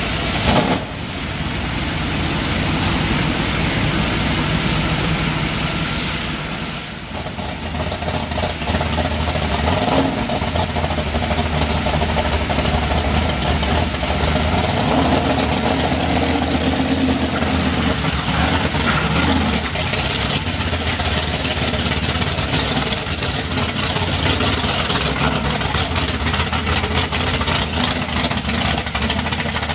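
An engine idling steadily under the hiss of a water spray hitting a mud-caked truck.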